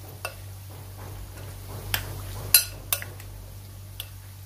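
Metal spoon stirring chicken pieces with oil and spices in a glass mixing bowl, clinking sharply against the glass about five times, loudest about two and a half seconds in, over a steady low hum.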